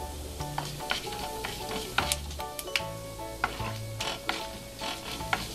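Mustard seeds and dal frying in hot oil in a nonstick pan, sizzling, with frequent sharp pops as the mustard seeds splutter: the sign that the tempering oil is hot and the seeds are done. A wooden spatula stirs them.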